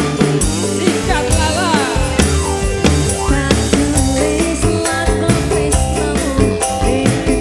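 Live dangdut koplo band playing with a steady beat: drums, bass guitar, electric guitar and keyboards.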